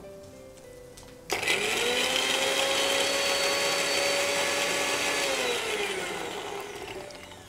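Electric mixer grinder grinding sweet corn kernels. The motor starts suddenly about a second in, whines up to speed and runs steadily for about four seconds, then winds down with a falling whine.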